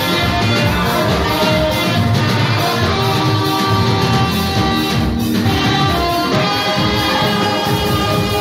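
Live band music with a saxophone playing, dense and continuous with held notes.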